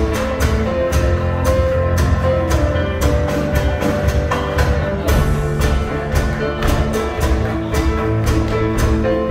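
A live string band playing a contra dance tune: a fiddle-led melody over a steady beat of about four strokes a second.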